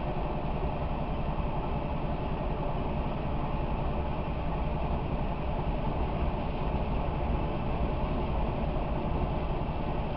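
Freight train rolling past, heard as a steady rumble through the windscreen of a parked car.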